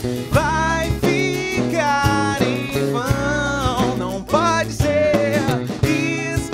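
A band playing live: guitars and a drum kit under a male lead voice singing a melody, with steady drum beats.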